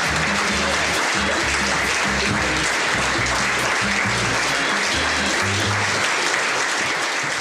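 Theatre audience applauding steadily at a curtain call, over music with a stepping bass line. The music stops about six seconds in, and the applause fades out at the end.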